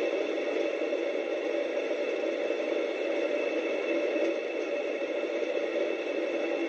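Domestic electric flour mill (atta chakki) running steadily while grinding wheat fed from its hopper: an even, unchanging machine noise.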